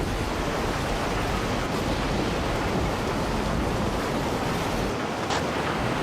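Fast-flowing floodwater rushing: a steady, dense wash of noise with no let-up.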